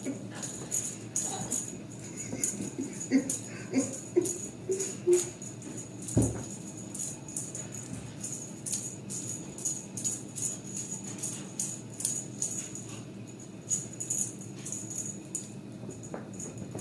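Background music carried by a light shaker-like rattling beat, about two strokes a second, with a few short pitched notes about 3 to 5 seconds in.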